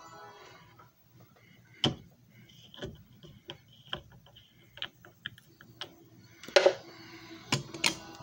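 Irregular plastic clicks and knocks from a disc and the parts of a disc repair machine being handled, with a louder clatter about six and a half seconds in and two more sharp knocks near the end.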